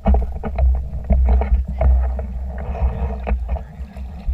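Water slapping and splashing against a small boat's hull close to a low-mounted GoPro, in a run of short irregular splashes and knocks. A heavy low rumble of wind and motion on the microphone lies under it, and a brief spell of rushing hiss comes about two and a half seconds in.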